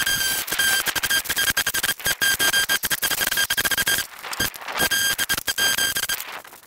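Cordless rotary hammer in chisel mode chipping out light, crumbly concrete at a door threshold, a fast hammering rattle over a steady motor whine. It runs for about four seconds, stops briefly, runs again for about a second and a half, then stops near the end.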